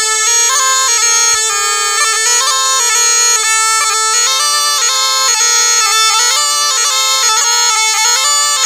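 Pungi (makudi), the snake charmer's gourd pipe with reed pipes, played continuously: a steady nasal drone under a melody that keeps stepping back and forth between a few close notes.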